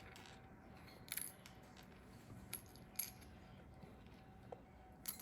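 A few faint, sharp clicks of small plastic Lego pieces, the loudest about one, three and five seconds in. They are the diamond pieces being picked up and dropped into their little box.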